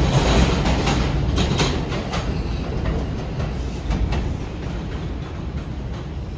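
R142 subway train running through the station without stopping, its wheels clacking over the rail joints a few times. The rumble fades steadily as the train pulls away.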